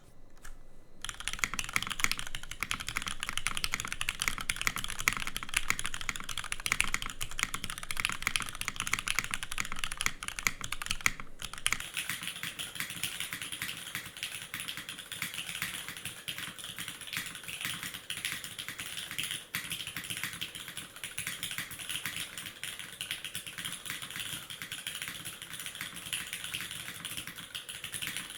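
Continuous typing on a Merisi Works 500C/M custom mechanical keyboard with lubed, filmed Cherry MX2A Nixie switches on a carbon fibre plate, under OG Cherry dye-sub keycaps: a dense, steady stream of keystroke clicks. It starts with a few separate strokes and has a brief pause about eleven seconds in.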